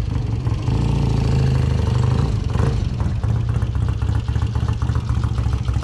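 Motorcycle engine running close by, first under way, then after about three seconds idling with a quick, even putter.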